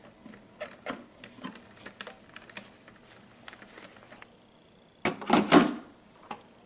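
Light, irregular clicks and taps of plastic toy-bike parts being handled and fitted together during assembly, with a short louder burst of rustling noise about five seconds in.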